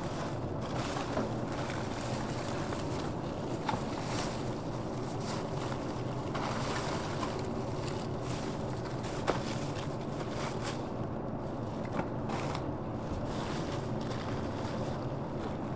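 Plastic carrier bags rustling and crinkling as gloved hands rummage through bagged rubbish in a wheelie bin, with a couple of sharp clicks. Under it runs a steady low rumble.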